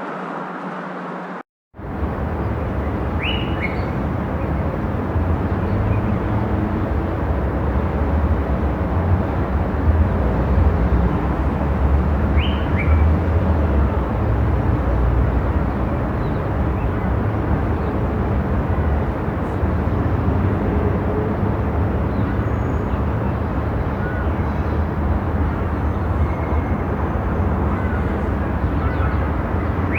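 Steady low rumble of a moving car. It cuts out for a split second near the start and then resumes, and a few short bird chirps sound faintly over it.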